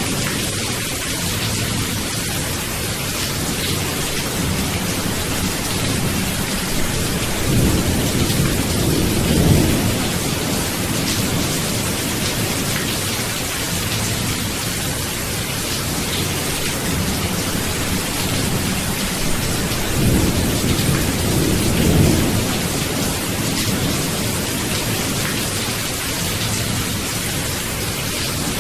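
Steady heavy rain hissing, with thunder rumbling low twice, about a third of the way in and again about three quarters of the way in.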